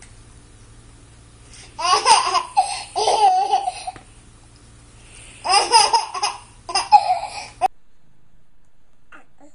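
A baby laughing in two bouts of high-pitched, rapidly repeated laughs, each about two seconds long; the second bout cuts off suddenly.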